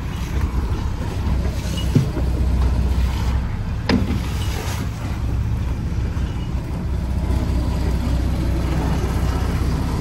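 Lobster boat's engine running steadily, with water rushing and splashing along the hull as a trap line is hauled. Two sharp knocks about two seconds apart stand out a couple of seconds in.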